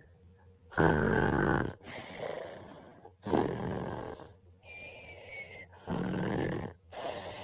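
A person snoring in sleep: three loud snores about two and a half seconds apart, with quieter breaths between them.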